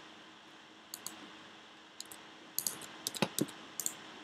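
Computer keyboard keystrokes and mouse clicks, faint and sharp. There are single clicks about one and two seconds in, then a quick flurry over the last second and a half.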